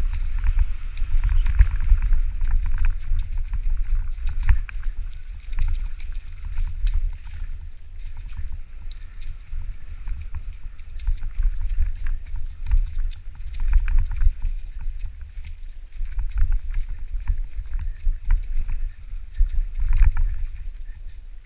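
Mountain bike riding down a rough dirt trail: wind buffeting the microphone as a heavy, uneven rumble, with the bike rattling and clicking over the bumps.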